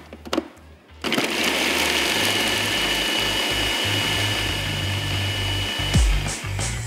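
Electric food chopper running steadily with a high whine, chopping an onion; it starts about a second in and stops about six seconds in.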